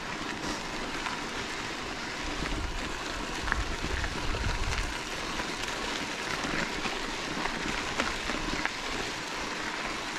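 Mountain bike tyres rolling over a loose dirt and gravel road, giving a steady crunching hiss dotted with small clicks of stones, and a low rumble for a couple of seconds around the middle.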